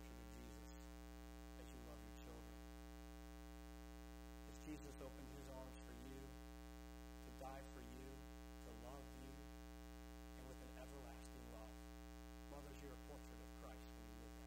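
Steady electrical mains hum with many evenly spaced overtones, the loudest thing present, with a man's faint talking coming and going beneath it.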